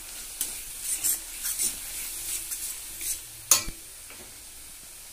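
Metal spatula scraping and stirring through a spiced onion-tomato masala in a metal kadai: a run of scraping strokes, the loudest about three and a half seconds in, over a faint steady sizzle of the masala frying in oil.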